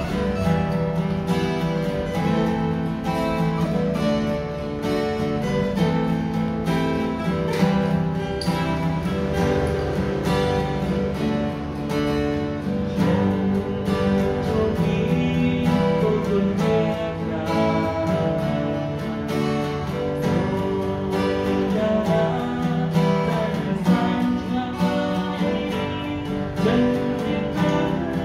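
Three acoustic guitars playing a song together, with steady strummed chords.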